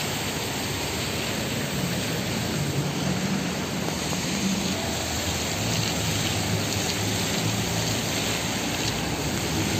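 Water jets from a fountain splashing steadily onto wet stone paving.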